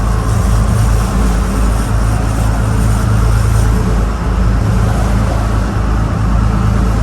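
Fishing charter boat's engine running steadily, a low drone with a constant hiss of wind and water over it.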